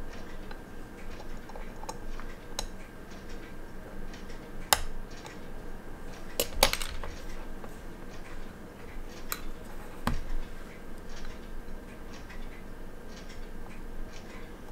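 Light metal clicks and taps of watchmaker's tweezers and screwdriver on a quartz watch movement and its metal case holder: a few sharp, irregularly spaced clicks, the loudest cluster about six and a half seconds in, and a duller knock about ten seconds in.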